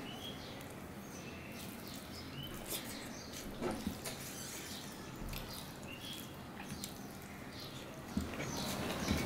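Wet chewing and lip smacking while eating rice and dal by hand, with scattered soft clicks and squelches from fingers mixing rice on a steel plate.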